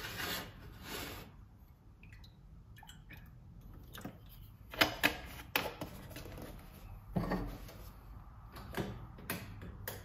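Kitchen handling sounds while oatmeal is prepared: a short rustle at the start, then a series of sharp knocks and clinks of utensils and containers, two loud ones close together about five seconds in and a few more spaced out near the end.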